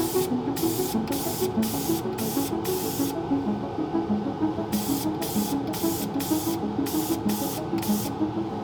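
Background music: a melody of short stepped notes over a soft, hissing, shaker-like beat of about two strokes a second, pausing twice.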